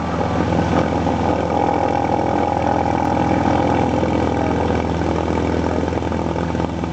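Single-engine light aircraft's piston engine running steadily at low power while taxiing onto the runway, heard from inside the cabin as an even low drone.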